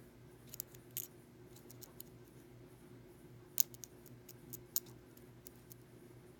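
Small metallic clicks and scrapes of a lock pick and tension wrench working the pins inside an Ace A527 hardened steel padlock, with two sharper clicks near the middle. A faint steady hum underneath.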